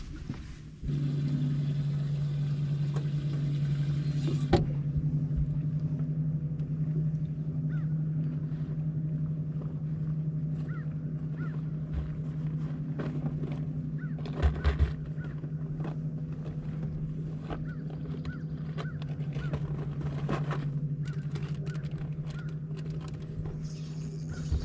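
Steady low hum of an electric motor on a bass boat, starting about a second in and holding an even pitch, with a few sharp knocks on the boat.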